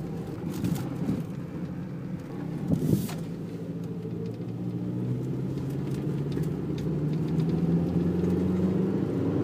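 A car's engine and road noise heard from inside the cabin as the car drives off, growing slowly louder. There is a brief thump about three seconds in.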